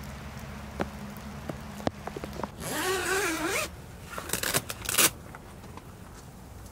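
Tipi tent's door zipper pulled in one long run of about a second, followed by a few short, quick tugs.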